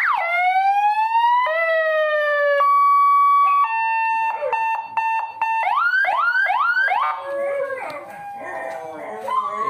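A 7-tone, 100-watt electronic car siren blaring through its loudspeaker horn as it is switched from tone to tone. It goes through fast up-and-down yelps, slow rising wails, a steady tone, a two-tone hi-lo and then quick rising whoops. In the last couple of seconds a dog howls along with it.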